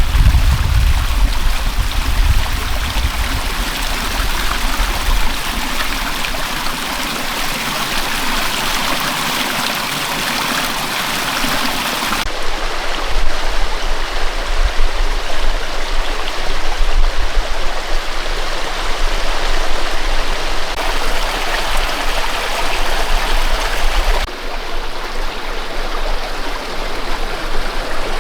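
Steady rushing water, like a stream, with a low rumble in the first few seconds. The noise changes suddenly about 12, 21 and 24 seconds in, as if cut between different recordings.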